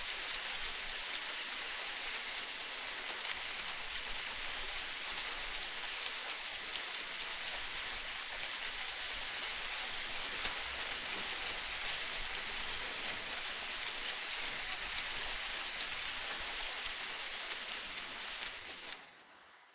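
Steady, even hiss like rain pattering, with no creaks standing out. It drops away sharply about a second before the end.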